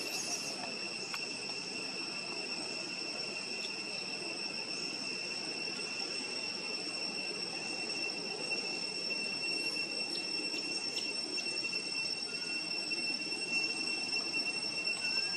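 Steady high-pitched insect drone, one unbroken tone held throughout, over a soft even background hiss.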